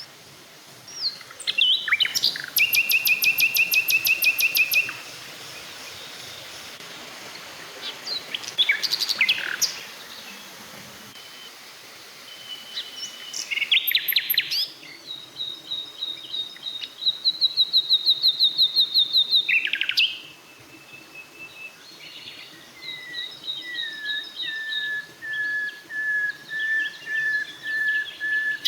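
Songbirds singing: several fast trilled phrases a few seconds long, with short sharp calls between them and a run of clear, slightly falling whistled notes near the end.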